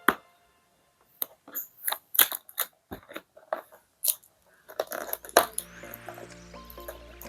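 Cardboard keyboard box being opened by hand: a run of sharp, irregular crackles and clicks of the packaging being cut and pulled open.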